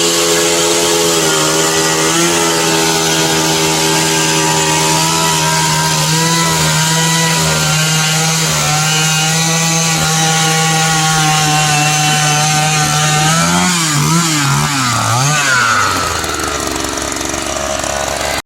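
Powered ice auger running steadily as it drills through thick ice. Near the end its pitch wavers up and down several times, then drops and it runs quieter.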